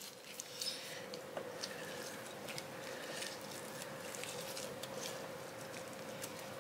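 Gloved hands pulling the bulbs out of a thawed jackfruit: faint, soft, sticky squelches and small clicks of fibre tearing, over a steady faint hum.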